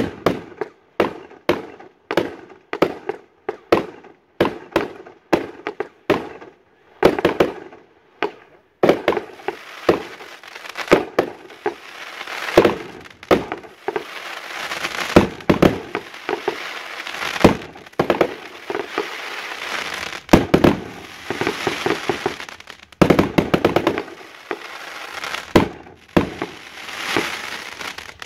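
Aerial fireworks bursting. Sharp bangs come about two a second for the first seven seconds or so, then after a brief pause, from about nine seconds, a dense continuous barrage of overlapping bangs and crackling runs until just before the end.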